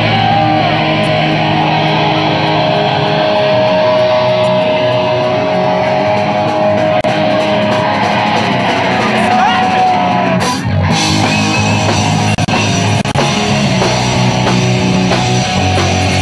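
Live rock band playing loud: distorted electric guitars, bass guitar and a drum kit, with one long held note in the first half.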